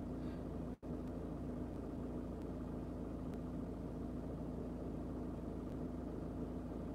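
Steady low mechanical hum inside a parked van's cabin, with one faint constant tone running through it. The sound cuts out briefly just under a second in.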